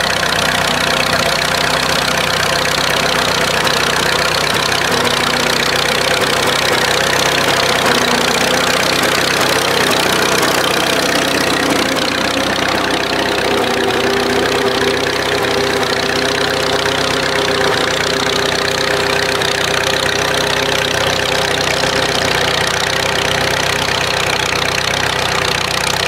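Standard Fordson tractor's petrol-paraffin engine running steadily under load while pulling a trailed plough through stubble.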